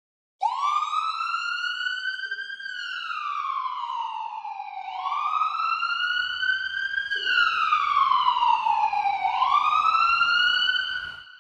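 Emergency-vehicle siren in a slow wail, its pitch rising for about two seconds and falling for about two seconds, cycling two and a half times. It starts abruptly about half a second in and fades out near the end.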